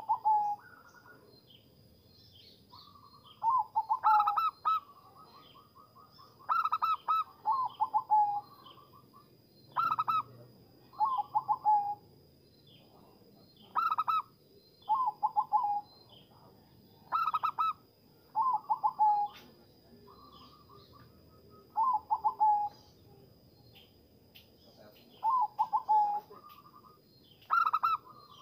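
Zebra dove (perkutut) cooing: about ten short phrases a few seconds apart, each a quick run of pulsed notes.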